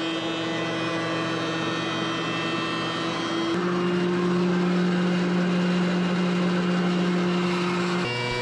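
A woodshop machine motor running with a steady hum. Its pitch steps abruptly about three and a half seconds in and again near the end.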